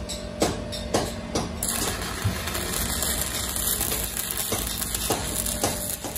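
Stick welder's arc crackling steadily as it lays a weld on a steel truck wheel rim, with a few sharper pops and a steady low hum underneath.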